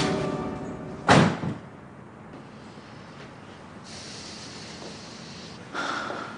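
A door shutting with a thud about a second in, followed by a lighter second knock, then faint room tone.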